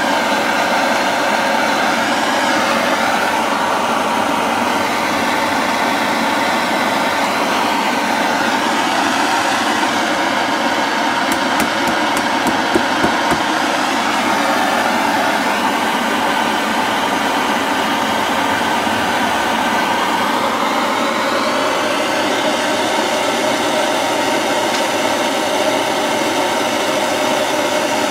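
Hand-held gas blow torch burning steadily, its flame played onto hardened PLA plastic to melt it off a 3D printer's hot end: a loud, even rushing hiss. A few faint ticks come about halfway through.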